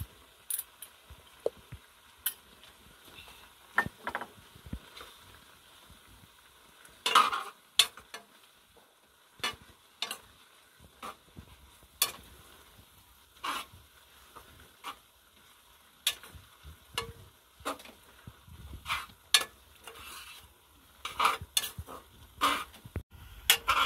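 A metal spoon stirring and scraping in a steel kadhai of cooking noodles, with irregular clinks and scrapes against the pan over a faint steady hiss from the pan.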